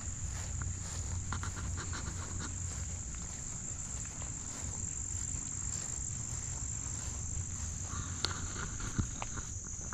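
A steady high-pitched chorus of insects in summer vegetation, over soft footsteps and a low rumble from walking along a grassy path. Two sharp clicks come near the end.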